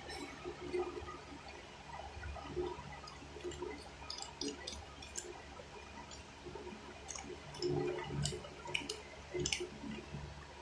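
Someone eating from an aluminium foil tray with a metal spoon: light clicks and scrapes of the spoon against the foil, with wet chewing sounds, over a steady low hum. The clicks come in clusters about four seconds in and again near the end.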